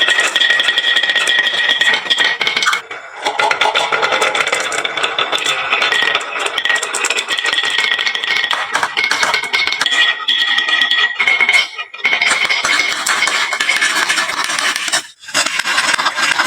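Many marbles clattering and clicking down a wooden marble run slope and into toy trucks, a dense, continuous rattle that breaks off briefly three times.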